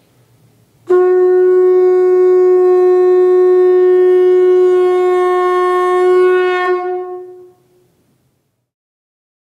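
Conch shell (shankha) blown in one long, steady note that starts about a second in, swells slightly near the end, then fades out after about six and a half seconds.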